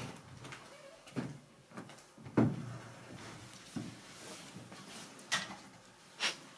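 A handful of scattered knocks and thumps over light rustling. The loudest knock comes about two and a half seconds in.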